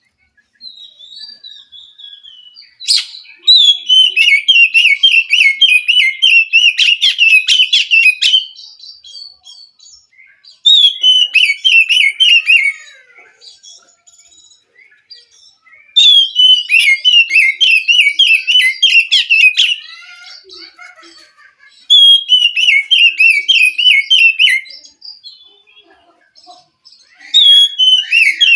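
Oriental magpie-robin (kacer) singing in about five loud bouts of fast, rich warbling, each opening with a falling note, with short pauses holding softer calls between them.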